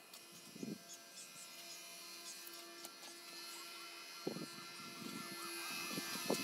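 A steady hum with a few faint knocks: one about a second in and two more near the end.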